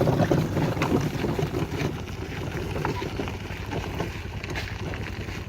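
Steady low engine rumble of a vehicle being ridden, with rattling knocks and wind buffeting the microphone.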